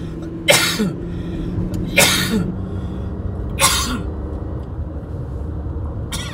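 A person sneezing three times, about a second and a half apart, each a short voiced catch followed by a loud burst of breath. Under it runs the steady hum of the car's engine and road noise inside the cabin.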